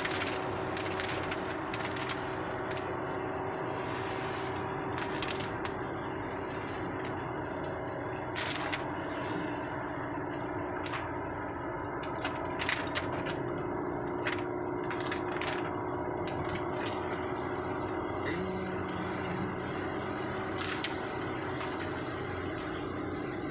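Rain hitting the windshield and roof of a moving car, heard from inside the cabin: irregular sharp drop impacts over a steady hum of engine and tyres on a wet road.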